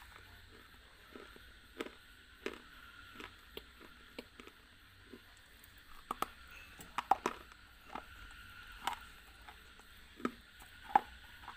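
Close-miked biting and crunching of a hard, brittle bar: a string of sharp snaps and crunches, thickest about six to seven seconds in, with the loudest crack near the end.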